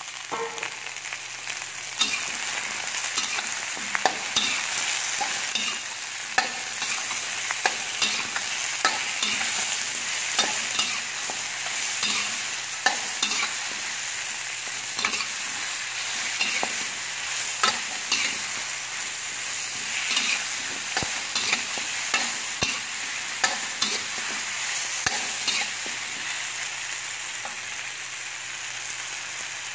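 Chicken feet, mushrooms and chillies sizzling in a hot wok while a metal spatula stirs them, scraping and knocking against the pan about once a second over the steady hiss of frying; the strokes thin out near the end.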